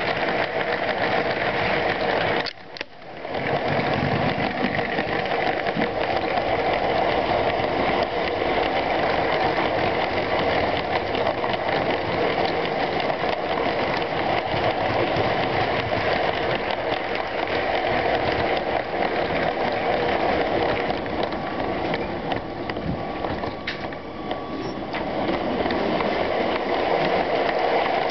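LEGO train running along plastic track, heard from a camera riding on the caboose: a steady whirring clatter of gears and wheels. It cuts out abruptly for a moment about two and a half seconds in, then picks up again, and eases off slightly a few seconds before the end.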